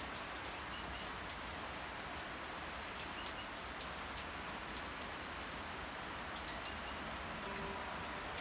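Steady rain falling on a lush garden: an even hiss of rain with scattered sharper drop ticks.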